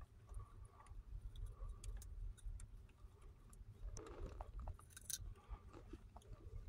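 Small dog chewing a raw broccoli stalk: faint, irregular crunches and clicks of teeth, busiest about four to five seconds in, over a steady low rumble.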